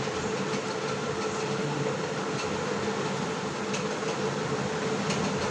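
Steady machine hum and hiss with a constant mid-pitched tone, like a running fan or cooling unit.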